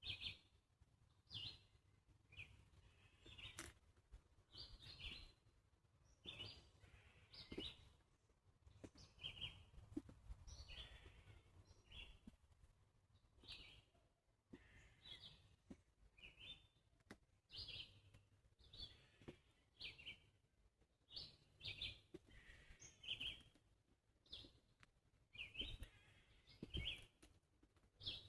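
Faint bird chirping: short high chirps repeated roughly once a second, over a faint low rumble.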